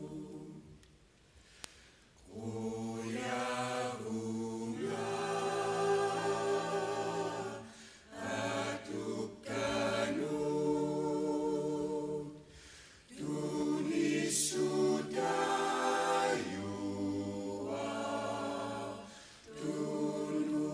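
A choir singing unaccompanied in Greenlandic, in long held phrases separated by brief pauses.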